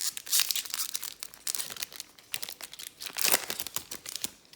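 Trading-card pack wrapper being torn open and crinkled in the hands: a dense run of crackling, loudest about a third of a second in and again past three seconds.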